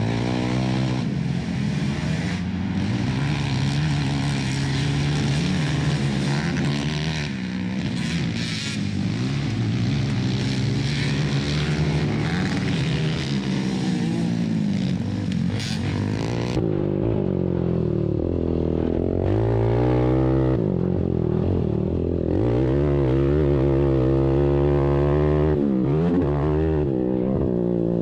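ATV engines racing, revving up and down as they run the short track. About sixteen seconds in the sound turns duller as the high end drops away, and the engine pitch keeps rising and falling.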